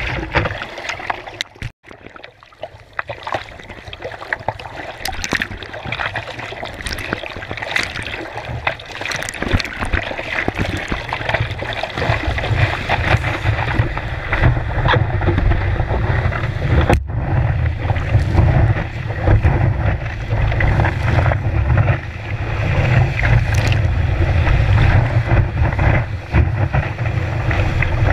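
Water rushing and splashing over a surfboard with the camera on its nose, and wind buffeting the microphone. The rush and buffeting grow louder from about halfway through as the board picks up speed on the wave.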